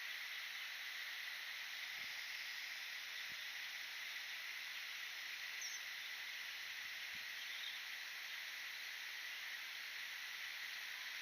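Steady insect chorus, an even buzzing hiss with a constant high drone, with a few faint low knocks.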